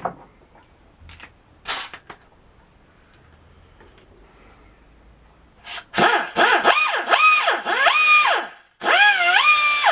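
Parkside pneumatic die grinder run on compressed air in a series of short blips from about six seconds in, each a whine that spins up and dies away, then a longer run near the end. A short hiss about two seconds in.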